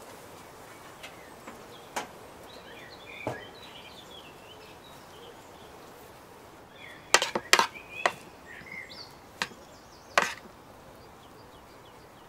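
A metal spoon clicking and scraping while avocado flesh is scooped from the skin and dropped into a salad bowl: scattered sharp clicks, with a quick cluster about two thirds of the way through. Birds chirp faintly in the background.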